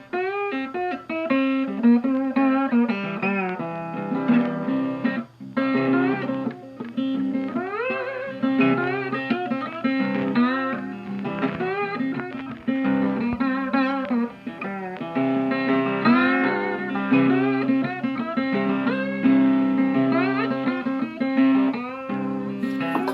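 Background music: plucked guitar with sliding, bending notes over a steady low accompaniment, in a bluesy style.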